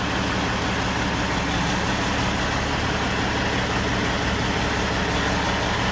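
Kenworth semi truck's diesel engine running steadily while the truck is backed into a shop.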